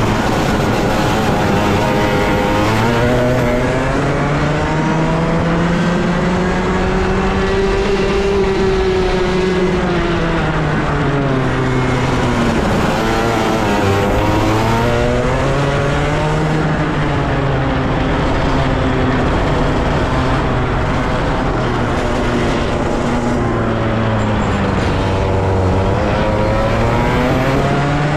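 Engine of a 125cc racing kart at full speed on track, its revs climbing and dropping again and again as it accelerates out of corners and brakes into the next.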